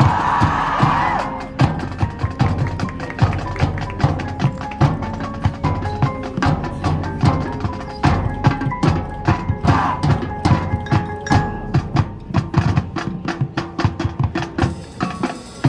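Marching band playing a percussion-heavy passage: rapid drum strikes and ringing mallet-percussion notes, with a held wind tone swelling in the first second.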